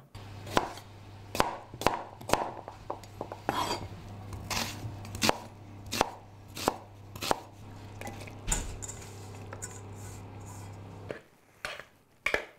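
Knife slicing a red onion on a cutting board: irregular sharp knocks of the blade on the board, about one or two a second, over a steady low hum that stops near the end.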